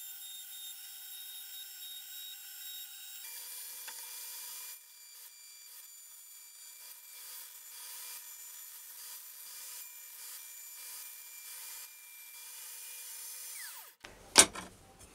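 Electric mini rotary tool (die grinder) with a flexible shaft running with a steady high whine while its pointed engraving bit scratches letters into glass. The whine drops in pitch about three seconds in, and the tool stops near the end, followed by a few sharp clicks.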